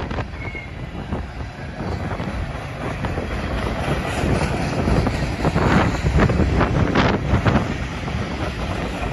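Freight train of covered hopper cars rolling past: a steady rumble of steel wheels on rail with a run of clacks and knocks from the wheels, growing louder about halfway through.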